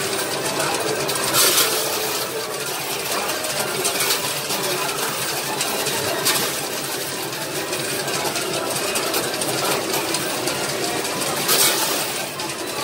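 Coin pusher arcade machine running: coins clinking as they drop onto the sliding pusher shelves, with a few sharp jingles over a steady mechanical arcade din.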